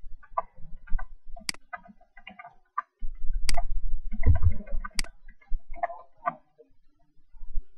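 Keystrokes and clicks on an ASUS K54 laptop: irregular soft taps with three sharper clicks, and a low rumble for a couple of seconds in the middle.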